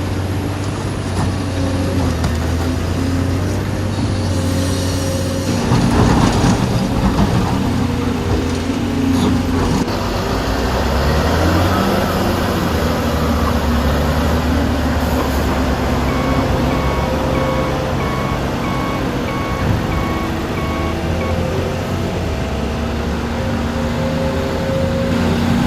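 Dubbed-in sound of full-size diesel construction machinery running steadily, growing louder about six seconds in. From about two-thirds of the way through, a reversing alarm beeps at an even pace, pauses, and starts again near the end.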